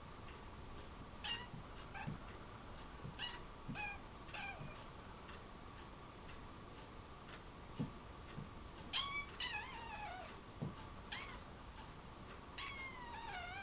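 Kitten mewing in short high cries while pinned and bitten in rough play-fighting, about five quick cries in the first few seconds, then longer wavering cries from about two-thirds of the way in.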